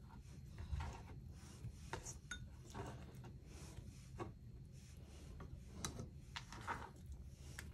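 Faint scattered clinks and scrapes of kitchen utensils being handled, a few light knocks a second or so apart, over a low steady hum.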